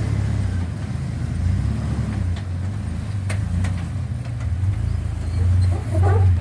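Lifted Jeep TJ's engine running at low revs with a steady low rumble as it crawls up a rock crack, with a couple of sharp knocks between two and three and a half seconds in.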